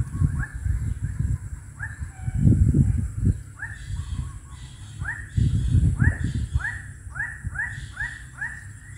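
An animal calling in a run of short, falling notes that come faster and closer together in the second half. Two bursts of low rumble, around a third of the way in and again just past the middle, are the loudest sounds.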